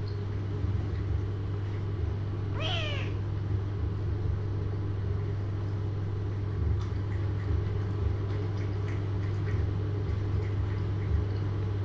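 A kitten gives one short meow that falls in pitch, about three seconds in, over a steady low hum.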